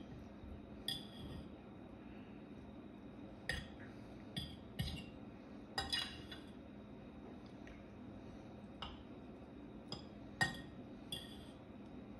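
A metal fork clinking against a ceramic plate while eating, about ten irregular clinks.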